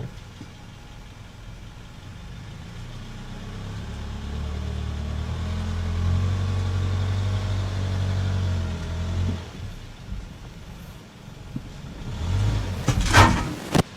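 Car engine running and revving under load as the car is driven up onto drive-on ramps, its low note building for several seconds, then easing off about two-thirds of the way through. A few loud knocks come near the end.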